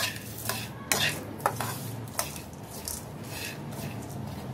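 A spoon stirring dry seeds and dal as they roast in a kadai. Several sharp clinks against the pan come in the first two seconds or so, then a softer, steady scraping and rustle.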